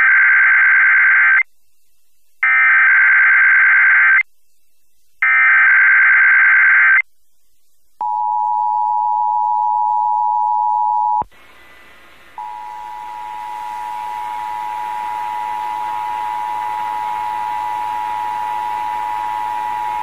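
Emergency Alert System tones from an FM radio broadcast. Three short bursts of the raspy SAME digital header, then the steady two-tone attention signal. The attention tone cuts out briefly about eleven seconds in and resumes with a hiss behind it; this is the start of a Required Monthly Test.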